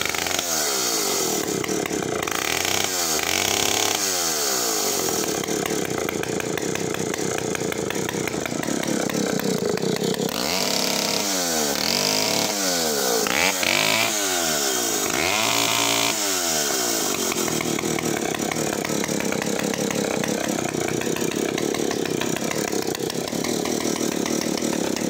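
Partner R11 chainsaw's 90cc direct-drive two-stroke engine running, revved up and down repeatedly. In the last third it settles and runs steadily.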